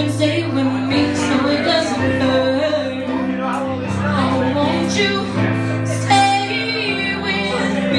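A woman singing a slow ballad live, accompanied by held chords on an electric keyboard.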